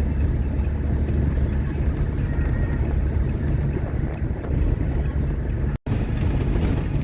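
Engine and road rumble inside the cab of a GAZelle truck driving at speed on a worn, bumpy road: a steady low rumble that breaks off for an instant about six seconds in.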